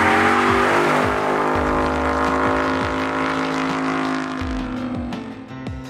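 2015 Roush Stage 3 Mustang's V8 held at high revs, with a brief tyre squeal at first. The engine note stays steady and fades away over several seconds. Background music with sharp hits comes in near the end.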